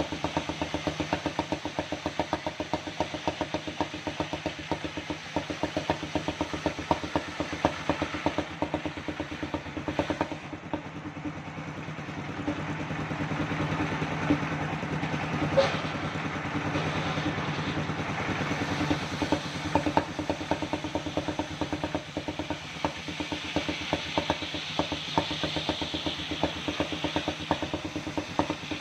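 Engine-driven circular sawmill running: a rapid, steady mechanical knocking with a constant hum, growing denser in the middle and again near the end, and one sharp click about halfway through.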